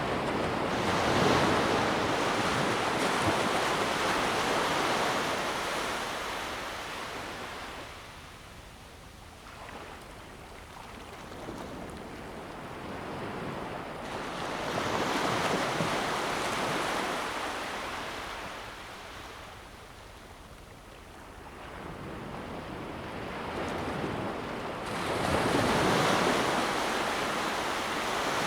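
Sea waves breaking and washing up on a shore. Three swells of surf rise and fall about ten seconds apart, with quieter lulls between them.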